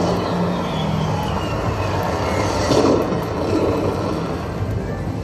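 A Lightning Link slot machine's electronic sounds during its hold-and-spin bonus: steady tones, a falling tone over the first two seconds, and a louder hit about three seconds in.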